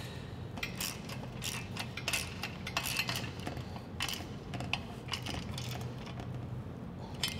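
Ratchet wrench clicking in short runs of strokes, tightening the screws and lock nuts that hold a winch roller plate to an ATV bumper.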